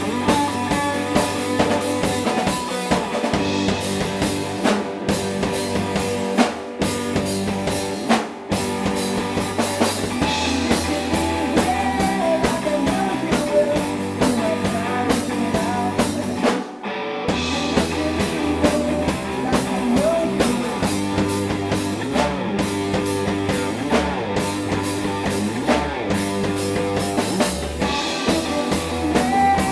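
Rock band playing, drum kit and guitar to the fore, with a short full stop about seventeen seconds in before the band comes back in.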